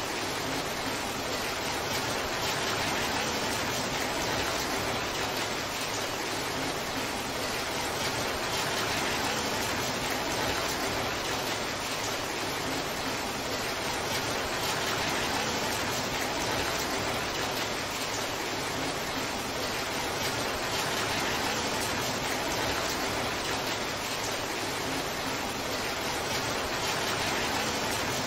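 Heavy rain falling steadily: a downpour's even hiss with no single drops or thunder standing out.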